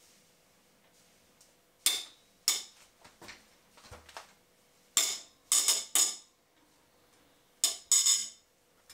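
Spanner on a long 10 mm bolt in a BMW R1200GS engine, giving sharp metallic clicks and cracks as the bolt is worked loose: two, then a quick run of four, then two more. The cracks are the sound of a tight bolt breaking free, which is frightening when it happens.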